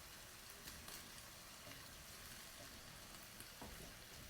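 Faint sizzling of minced pork, mushrooms and green beans cooking in a pan with a little water, with a few small crackles.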